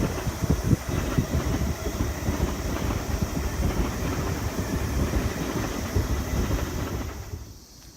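A Seibu Shinjuku Line electric train passing close by: a dense rumble with rapid, irregular wheel knocks on the rails. It fades away quickly near the end as the train clears.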